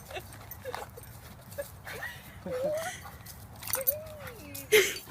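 A dog whining and whimpering with excitement: short high squeaks, then two longer wavering whines about halfway through. Scattered clicks and rustling run under it, with a louder burst of noise near the end.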